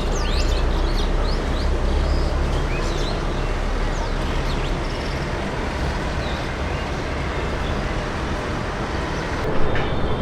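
Steady low rumble of distant engines, with birds chirping in the first few seconds and a short louder bump near the end.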